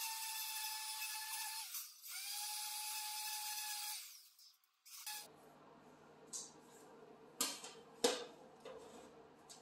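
Corded orbital sander running steadily on a sheet-steel panel. It winds down with a falling pitch about two seconds in, restarts, and winds down again around four seconds. After a short pause, a few sharp metallic knocks come as the steel sheet is handled on a steel welding table, the loudest near eight seconds.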